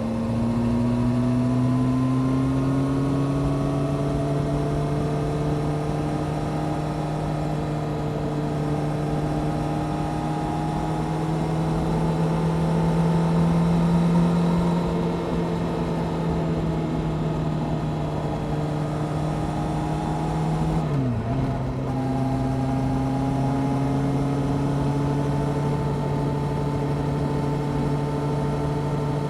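Honda CBR600F Sport's inline-four engine with a Delkevic exhaust, running steadily under way as heard from the bike. Its note climbs slowly as the bike picks up speed. About two-thirds of the way through, a quick gear change briefly drops the revs, and the note then settles a little lower.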